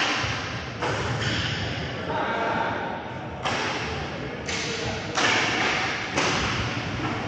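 Inline hockey play in an arena: a string of sudden knocks and thuds, sticks and puck against the boards, roughly one a second, with a steady noisy wash between them and players' voices.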